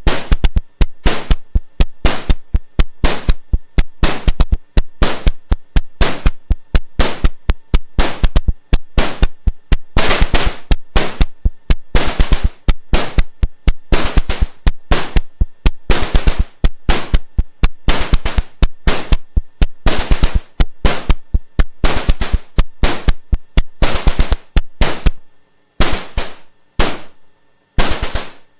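SODApressed Eurorack noise percussion module playing a fast rhythmic pattern of noise hits, several a second, with short and longer decays mixed. For the last few seconds the hits come further apart and lose their low end, turning thinner and hi-hat-like.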